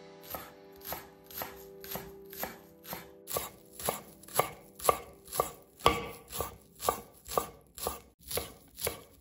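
Knife chopping on a cutting board in even strokes, about two a second.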